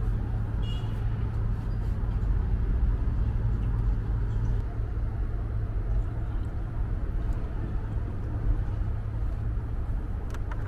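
Steady low motor-vehicle rumble with a constant hum, with no rise or fall in pitch.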